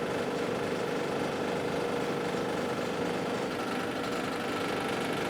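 A small motor running with a steady hum and a faint whine held on one pitch.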